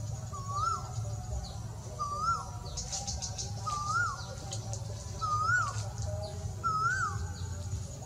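Male Asian koel calling, a clear rising note that drops off sharply at the end, repeated steadily about every second and a half, five times. Other birds chirp faintly and higher-pitched behind it.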